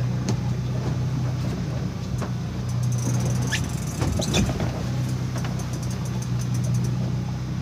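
Steady low hum of a boat's onboard motor running, with a few clicks and knocks about halfway through.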